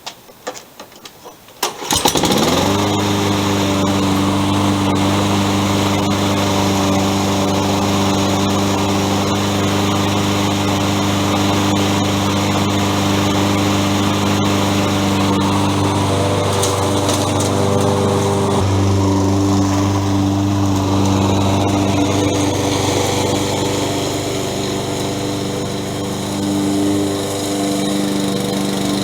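Toro self-propelled walk-behind mower's small single-cylinder engine starts suddenly about two seconds in and runs steadily. Its pitch shifts a little around the middle and its level dips briefly near the end.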